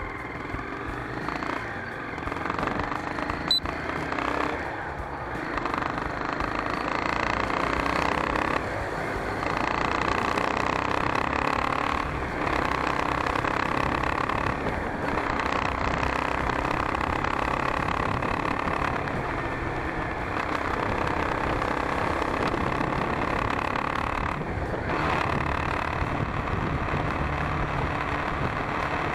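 Motorcycle engine running and wind rushing past while riding in traffic, heard from a handlebar-mounted camera. The sound builds over the first couple of seconds, then holds steady with a few brief dips.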